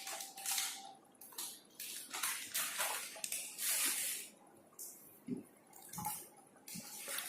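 Close-miked chewing: irregular wet mouth noises from eating a peanut chocolate, with a few soft knocks near the end.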